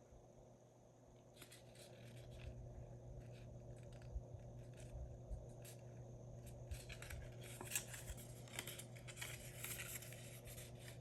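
Faint rustling and scraping of a cardstock cover being folded and creased by hand, the sounds growing busier in the second half.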